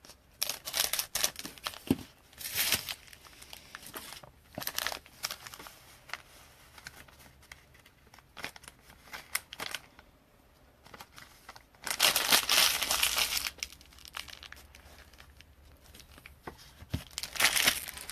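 Trading card pack wrappers being torn open and crinkled by hand, in irregular rustling bursts with small clicks, with longer, louder crinkling about twelve seconds in and again near the end.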